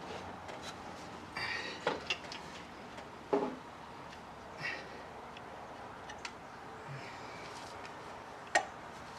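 Scattered metal clinks and clanks from hand tools and small engine parts being handled during parts removal. The sharpest clank comes near the end.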